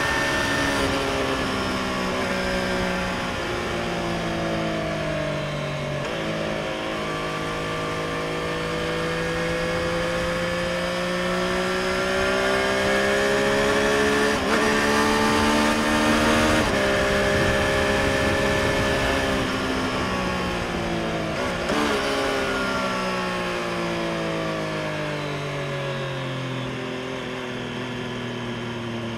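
Triumph Street Triple RS's inline three-cylinder engine through its stock exhaust, heard onboard while riding: the revs drop, then climb slowly, with two quick breaks in pitch around the middle as it changes gear. It then rolls off, its pitch falling over the last several seconds with one more shift partway through, over steady wind rush.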